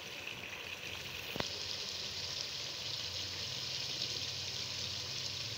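Chicken and potatoes sizzling in a pot of reducing vinegar sauce, a steady frying hiss as the water cooks off and the ghee separates. A single sharp click comes about a second and a half in.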